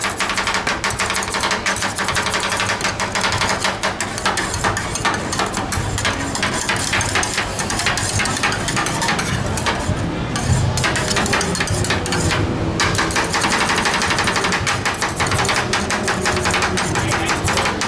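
A fast, steady clicking rattle, many clicks a second without let-up, over a low hum.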